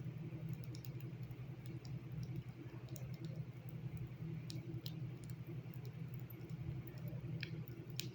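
A steady low hum with scattered faint clicks and ticks, a few sharper ones near the middle and near the end.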